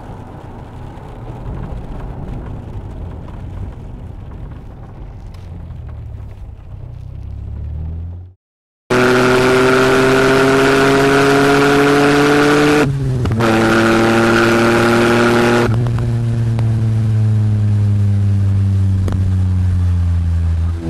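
Vauxhall Cavalier GSi 4x4's 3.0 V6 engine on the road: first a low steady drone of the car cruising, then, after a brief silent break, the V6 pulling hard with revs climbing. There is a short break for a gear change about two-thirds of the way through, then it pulls again, and near the end the revs fall steadily as it eases off.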